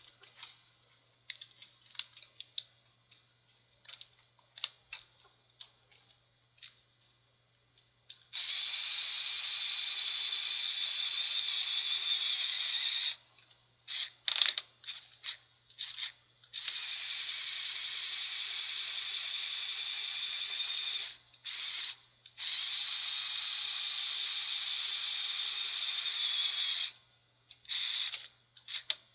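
Small electric motors whirring through the plastic gear train of a motorized Lego Technic truck. The motors run in bursts of several seconds with short blips between them, after a first stretch of faint clicks from the plastic parts being handled.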